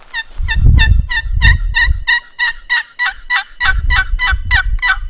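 Turkey yelping: a long, even run of about sixteen yelps, about three a second, with a low rumble underneath in places.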